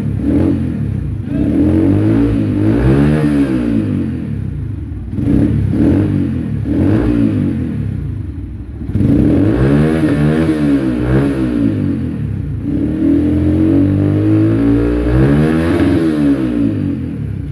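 Yamaha YB125Z DX's single-cylinder four-stroke engine running through a freshly fitted aftermarket Hayabusa-style silencer, blipped repeatedly so the pitch rises and falls, settling back between revs. The engine is being revved to check the new exhaust joints for leakage.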